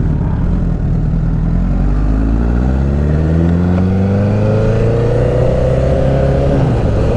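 Sport motorcycle with a short aftermarket exhaust accelerating away: the engine note climbs steadily for a few seconds, drops at a gear change near the end, then holds steady.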